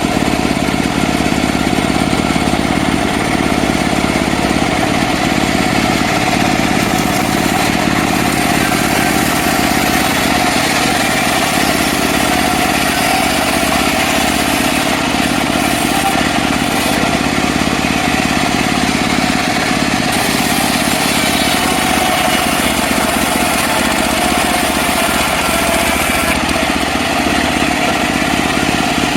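Petrol engine of a mobile bandsaw sawmill running steadily while the mill saws mahogany.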